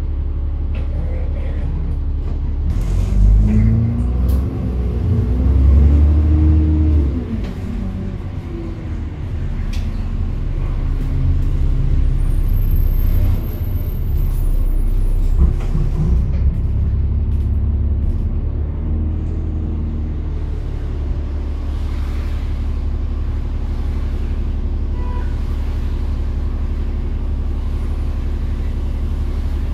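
Bus engine heard from inside the passenger cabin as a steady low rumble. About three to eight seconds in it gets louder, and its note rises and falls several times as the bus accelerates through its gears.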